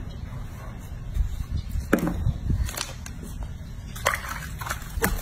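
Soapy bathwater sloshing and splashing in a bathroom sink as hands wash a baby monkey, with a few short splashes about two seconds in and a cluster near the end.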